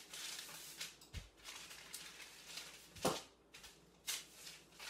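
Wooden rolling pin rolling cookie dough out under parchment paper: the paper rustles as the pin passes back and forth, with a few knocks, the loudest about three seconds in.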